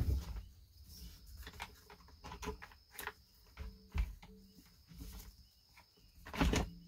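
Scattered light clicks and knocks of a Husqvarna 240 chainsaw's plastic housing and handle being worked by hand during disassembly, with a louder knock near the end.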